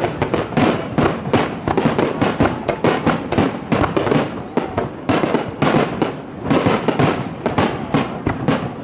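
Aerial firework shells bursting in a fast barrage, several sharp bangs a second, thinning out a little near the end.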